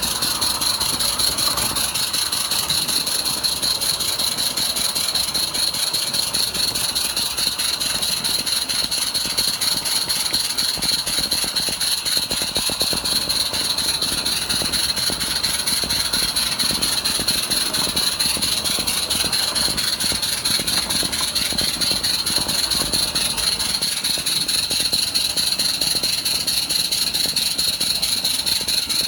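Accucraft Ragleth model steam locomotive running steadily along the track, heard from a wagon coupled close behind it: a fast, even beat over a steady hiss.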